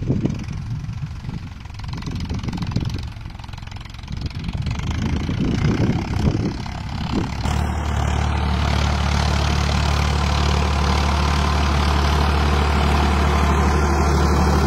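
Farmtrac 60 PowerMaxx tractor's 55 hp diesel engine pulling a disc harrow. At first distant and uneven, then about halfway through close by and running with a steady, even note.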